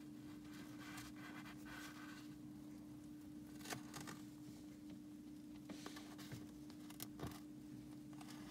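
Faint handling noise: fingers rubbing and shifting on a polished quartz sphere as it is turned in the hands, with a few soft clicks and scrapes over a steady low hum.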